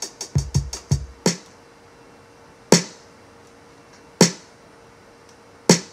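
Drum-machine beat played back from Maschine: a quick kick-drum and hi-hat pattern for about the first second, then a single sharp drum hit, three times, about a second and a half apart.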